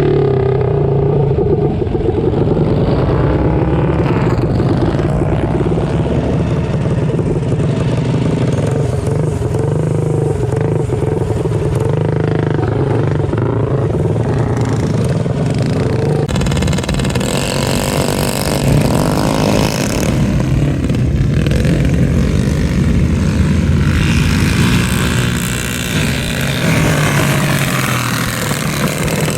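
Small single-cylinder mini bike engines running hard and revving. The sound changes abruptly about sixteen seconds in.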